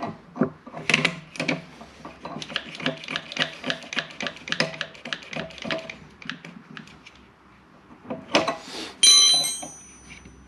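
Hand tools working on metal, here on a stuck motor pulley: a quick run of sharp metallic clicks and knocks, about three or four a second, for the first six seconds. Near the end comes a bright metallic clink that rings out for about a second.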